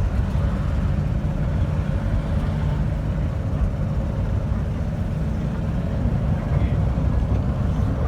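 Tourist bus's engine running with a steady low rumble.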